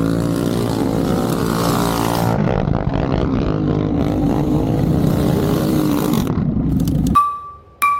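An engine running steadily with a slightly wavering pitch, cutting off suddenly near the end, followed by a clear chime-like ring.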